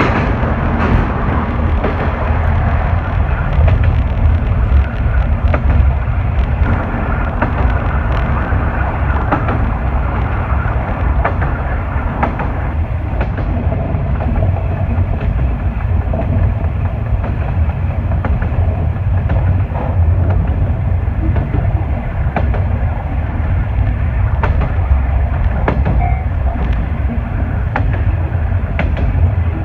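Diesel railcar running along single track: a steady low engine and running rumble with wheel noise on the rails and occasional rail-joint clicks. The noise is louder and echoing for about the first second, as the train runs out of a tunnel.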